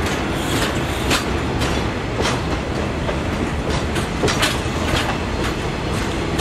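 Metre-gauge passenger coaches rolling past, their wheels clicking over the rail joints about twice a second over a steady low rumble.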